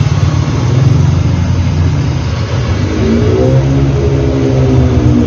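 An engine running with a steady, pulsing low rumble; about three seconds in its pitch rises and holds as it revs up.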